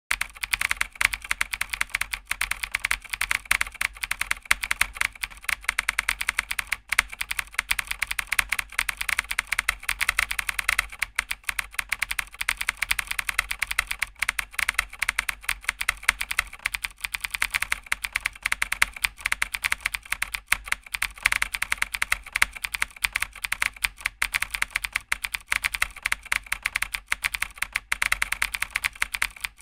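Rapid computer-keyboard typing clicks, several keystrokes a second in a steady, unbroken run: a typing sound effect keeping pace with letters appearing one at a time.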